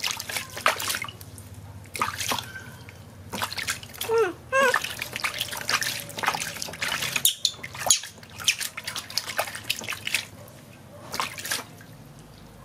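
Water splashing and sloshing in a plastic tub as a hand scoops it over a baby monkey being bathed, in many short splashes. A few brief high calls come about four seconds in.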